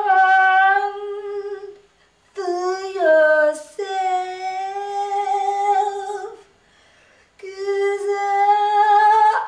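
A solo voice singing without accompaniment: three long, wordless held notes on much the same pitch, with short breaks between them and a brief dip in pitch in the second note.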